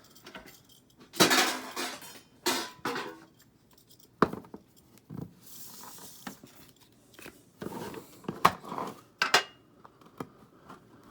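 Metal card tins clanking and scraping as they are handled and opened: a string of sharp knocks and clinks, with a few brief scraping or rustling stretches.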